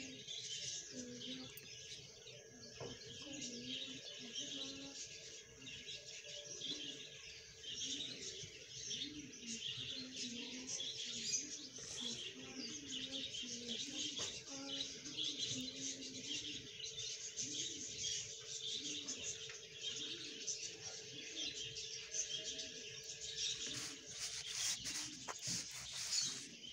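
Many small birds chirping continuously in a busy chorus, with a steady faint hum underneath.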